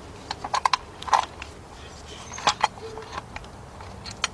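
Light metal clinks and taps of a steel bracket knocking against the engine as it is set in place by hand. There are about a dozen irregular clicks, bunched around half a second in, at about two and a half seconds, and near the end.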